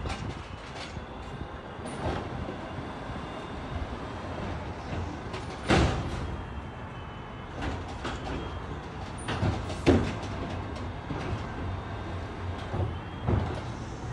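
Front-loading garbage truck's engine running while its arm lifts and dumps a green-waste cart into the hopper, with several sharp metallic bangs, the loudest about six and ten seconds in.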